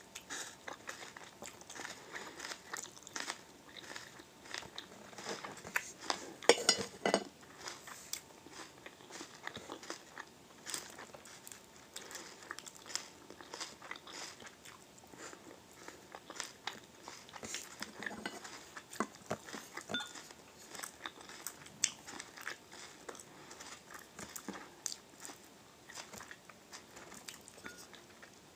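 Close-up biting and chewing of grilled wild onion leeks: soft crunches and scattered small crackling clicks, with a louder run of crunching about six or seven seconds in.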